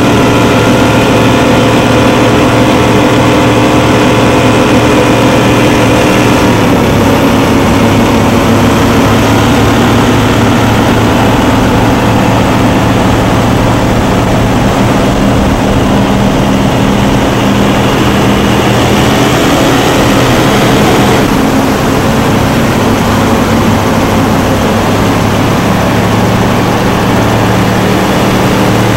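Donzi powerboats' engines running flat out at high speed: a loud, steady drone with a shifting pitch about seven seconds in and again around twenty-one seconds.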